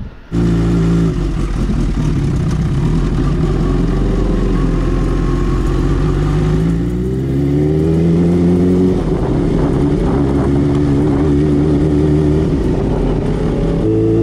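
Kawasaki Ninja H2's supercharged inline-four engine running under way. Its pitch holds steady, then rises over a couple of seconds about halfway through as the bike accelerates, then holds again.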